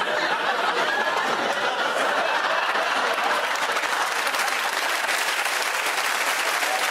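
Studio audience applauding and laughing together, a dense, even din with no break.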